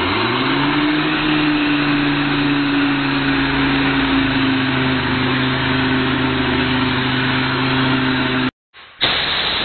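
Pneumatic 6-inch random orbital air sander spinning up and running on an oak board: a steady whine over loud air hiss. It cuts off suddenly about eight and a half seconds in, then starts again briefly.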